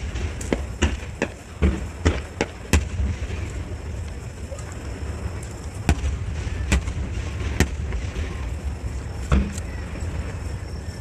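Fireworks display: aerial shells bursting in a string of sharp bangs, several in quick succession in the first few seconds, then scattered single bangs, over a steady low rumble.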